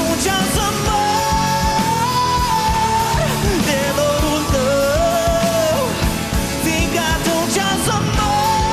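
A live rock band playing with drums and bass, while a male singer holds long, high, wordless notes with slides between them.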